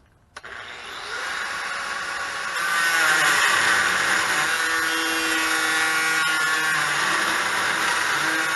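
Angle grinder with a cutting disc starting about half a second in, spinning up and growing louder as it bites, then running steadily while cutting off a seized carriage bolt.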